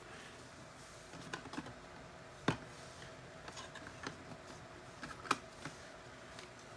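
Faint, scattered light clicks and taps of cards being handled, the clearest about two and a half seconds and about five seconds in.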